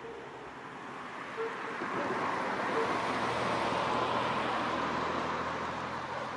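A car passing on the road, its tyre and engine noise swelling over the first few seconds and fading toward the end.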